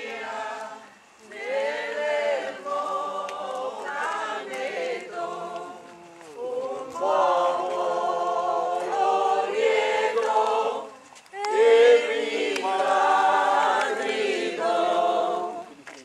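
A crowd of voices singing a hymn together without accompaniment, in long phrases with brief pauses between them.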